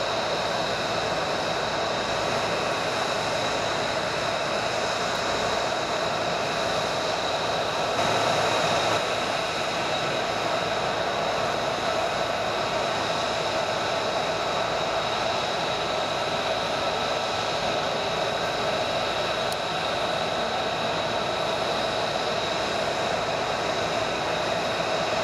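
F-35B Lightning II's F135 turbofan idling on the ground: a steady jet rumble with a high whine, a little louder about eight seconds in.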